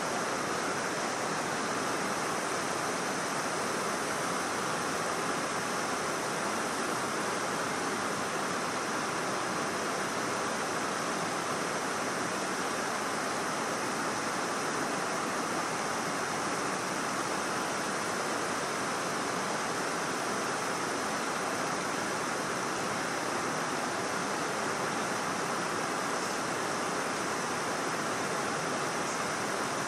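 Water rushing over a river dam: a steady, even rushing noise that does not change.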